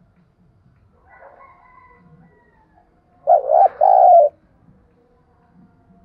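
Spotted dove cooing: one loud call about three seconds in, a short note followed by a longer rolling one, of the kind kept to lure wild doves.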